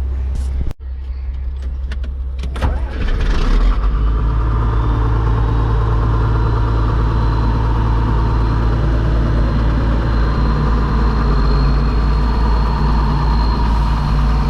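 An engine starts up about three seconds in, then runs steadily under load with a faint high whine that rises slightly in pitch.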